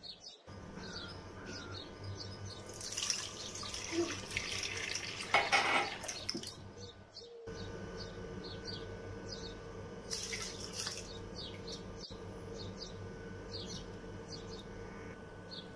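Milk poured into an empty stainless-steel pot: a rushing, splashing pour of a few seconds, loudest near its end. After it comes a steady hum with a second, shorter rush of liquid.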